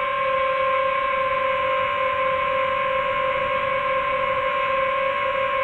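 Quadcopter drone's propellers and motors whining steadily in flight, one unchanging pitch with a strong overtone over a rushing hiss.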